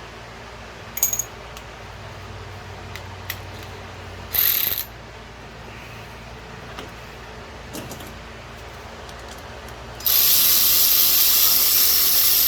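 Air-powered wrench run in a short burst about four seconds in, then a longer run of about three seconds near the end, a loud hissing rattle as it works a fastener loose. Light clicks of tools handled in between.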